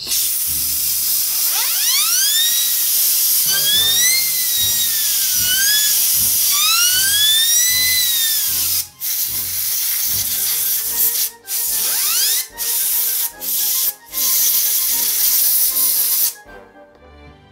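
Compressed air blowing through the open motor of a Lister Stablemate clipper to clear hair out of the field: a loud steady hiss with several brief breaks near the end. The spinning armature adds a whine that rises and falls in pitch in the first half.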